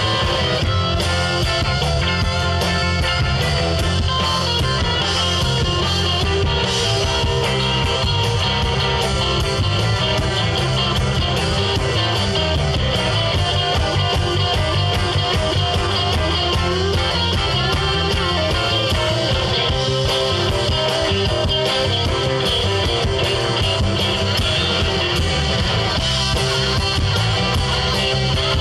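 Live rock band playing an instrumental passage at full, steady volume: electric guitars over bass and a drum kit.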